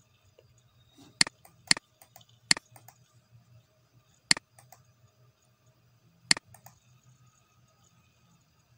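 Computer mouse clicking: five sharp single clicks spaced irregularly over several seconds, over a faint low background hum.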